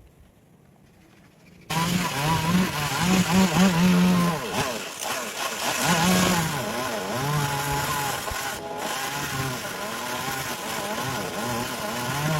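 Chainsaw running, revving up and down, cutting in suddenly just under two seconds in after near silence.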